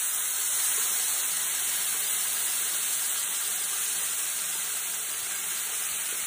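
Cooked beef and gravy sizzling and hissing steadily as they are poured from a pressure cooker into a frying pan of hot oil.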